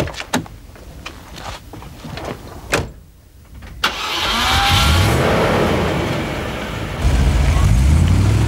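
Car door handled and shut with a few sharp clicks and knocks, then a Range Rover's 3.5-litre fuel-injected V8 is started about four seconds in, rising in pitch as it catches. From about seven seconds it gets louder and deeper as the vehicle pulls away.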